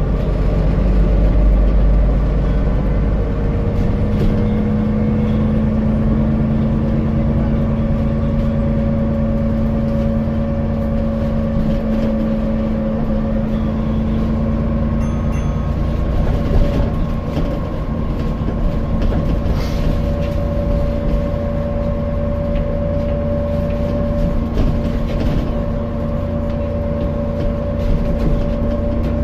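Alexander Dennis Enviro400 MMC double-decker bus idling: a low rumble with steady whining tones held over it, the unusual idling sound of this bus.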